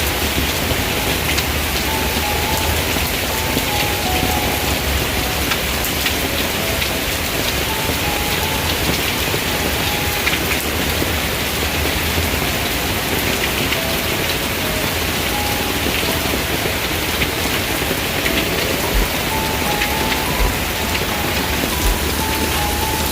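Steady heavy rain, an even hiss of falling drops without let-up, with a faint tune of single held notes beneath it.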